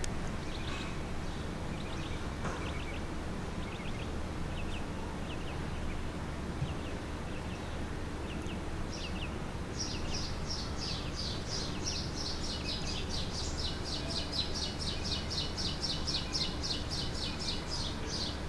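Birds chirping over a steady low background hum. About ten seconds in, a fast run of high, evenly repeated chirps, around five a second, starts and goes on for about eight seconds.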